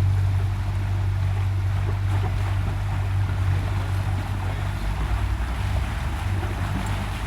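A motorboat's engine running steadily at speed, a low drone, with water rushing past the hull and wind buffeting the microphone.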